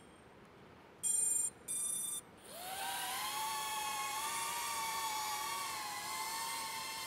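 Two short electronic beeps about a second in. Then the 3-inch cinewhoop FPV drone's motors and propellers spin up with a rising whine and settle into a steady high whir as it takes off and flies.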